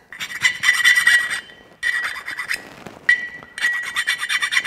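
Hand file scraping across the edges of an aluminum jet-drive impeller in three bouts of quick strokes, with a high metallic ring under them. The file is taking a worn lip off the blade edges.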